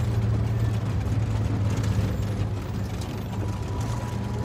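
Truck's diesel engine running steadily while driving, a low, even hum with a fainter higher tone above it.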